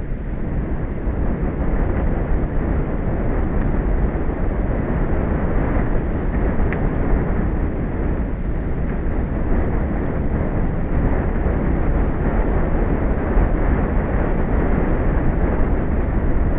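Steady rumbling roar of wind and sea at an offshore tower, the wind buffeting the microphone, with no breaks or distinct events.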